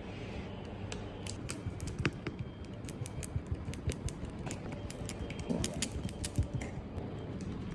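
Irregular small clicks and taps of tools and parts being handled during a phone repair, over a steady low background rumble.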